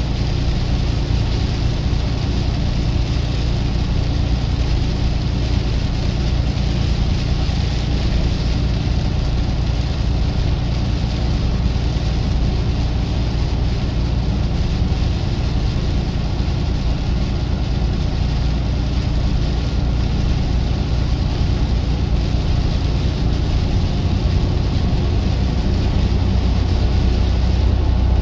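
Semi-truck driving on the road: a steady low engine drone with a constant hiss of road noise, swelling slightly near the end.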